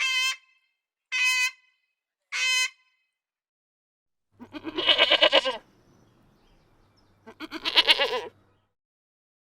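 Three short, evenly spaced beeps at a steady pitch, then two long, wavering bleats from a sheep or goat about three seconds apart.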